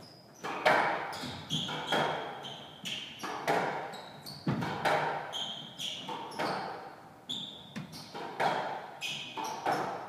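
Squash rally: the ball struck by racquets and smacking off the walls and floor in quick succession, each hit ringing in the enclosed court, with rubber-soled court shoes squeaking briefly on the wooden floor between shots.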